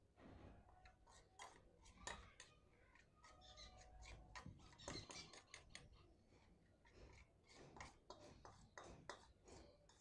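Faint, irregular clinks and scrapes of a metal spoon stirring parrot-chick hand-feeding formula in a steel bowl.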